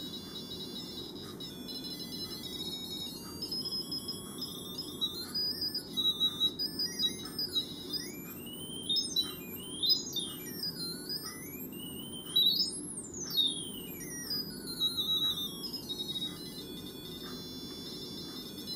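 Piezo buzzer playing a thin electronic tone whose pitch follows the resistance of a scribbled graphite pencil trace. The pitch steps between notes at first, then slides up and down in quick swoops through the middle and steps again near the end. The pitch rises as the pencil nears the contact and falls as more graphite lies between them.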